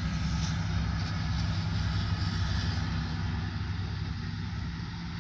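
Amtrak Capitol Corridor passenger train of bilevel cars rolling past: a steady low rumble and drone, easing off slightly near the end.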